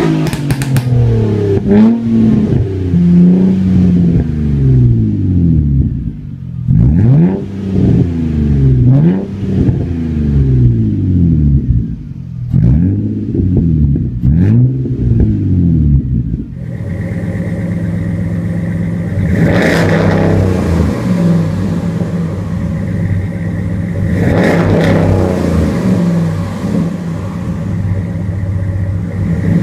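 2002 Nissan Maxima's 3.5-litre V6 through a 3-inch aftermarket exhaust, revved again and again in short rises and falls while the car stands still. About sixteen seconds in it gives way to a 2011 Dodge Ram pickup with a Flowmaster exhaust running steadily, revved up twice.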